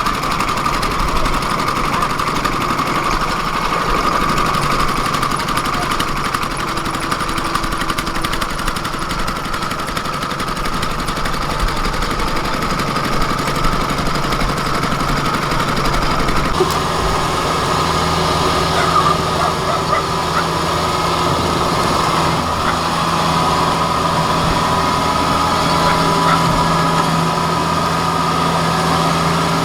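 Engine running steadily. About halfway through, a deeper steady engine note joins it and holds.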